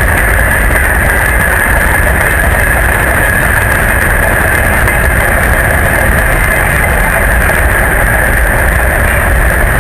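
Freight train moving along the line, a loud, steady rumble with a constant higher rolling hiss and no distinct wheel clicks.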